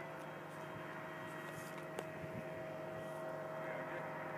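Electric motor of a Bixler RC foam plane running at a steady low speed: a thin, even whine, with a single faint click about two seconds in.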